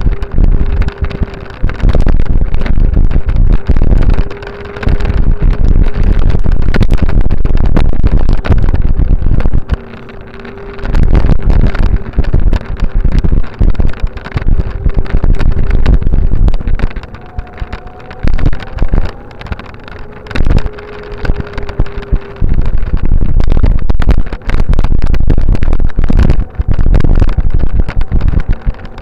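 Wind buffeting the microphone of a camera carried along a paved path, a heavy low rumble that eases off in a few stretches, with frequent sharp clicks and knocks. A faint steady whine comes and goes.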